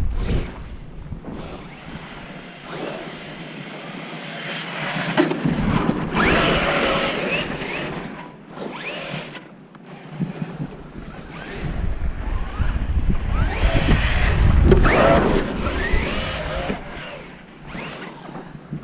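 Electric RC monster trucks running, their motors whining and rising in pitch as they speed up, loudest about 6 seconds in and again about 15 seconds in. Wind rumbles on the microphone.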